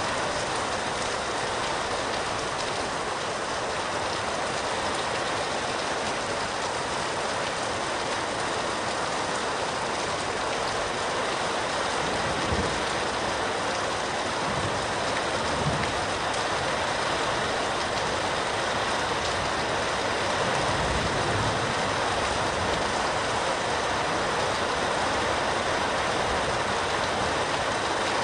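Heavy rain falling steadily, heard through an open window, with a few soft, low thunder rumbles around the middle.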